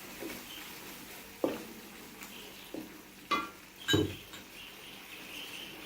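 Metal utensil knocking and scraping against a wok while stirring, about five clinks, over a faint sizzle of spice paste frying in oil.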